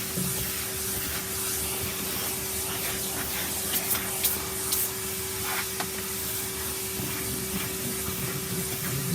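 Bagged vacuum cleaner running steadily, its motor giving a constant hum under a rushing hiss, with a few short sharp clicks about four to five seconds in.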